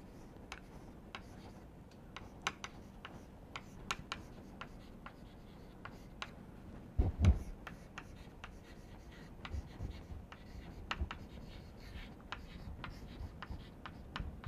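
Chalk writing on a chalkboard: a run of short taps and scratches as the chalk strikes and drags across the board. One brief low thump about seven seconds in.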